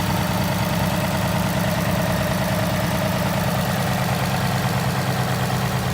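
2018 Ford Mustang GT's third-generation 5.0 Coyote V8 idling steadily, with a fast, even ticking running through the idle. The owner calls it abnormal and wonders whether it is the Coyote's 'typewriter' tick.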